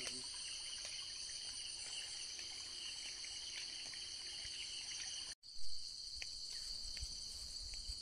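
Insects chirping in a steady high-pitched chorus with a fine pulsing texture. The sound drops out for an instant a little past five seconds in, followed by a short louder bump.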